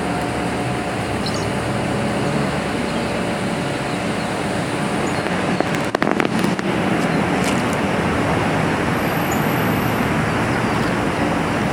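Steady low mechanical hum with a few clicks and knocks about six seconds in.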